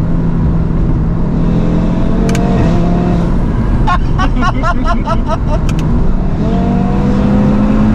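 Audi RS3's turbocharged 2.5-litre inline-five (DAZA) pulling hard, its pitch climbing twice with sharp cracks at the gear changes. Between the two pulls comes a rapid stutter of about five pops a second.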